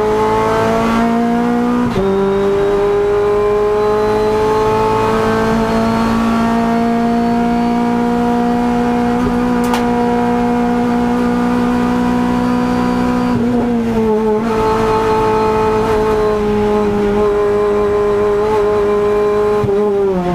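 Renault Clio Cup X85 race car's four-cylinder engine pulling hard under full throttle, heard from inside the stripped cabin. The revs climb steadily and drop at gear changes about two seconds in and near the end, with a brief lift and gear change about two-thirds through; a single sharp click sounds near the middle.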